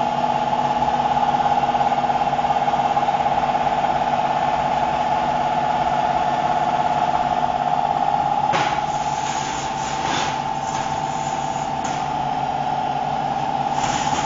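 CNC machine running with a steady high whine. From a little past halfway, short hissing bursts and clicks come in over it.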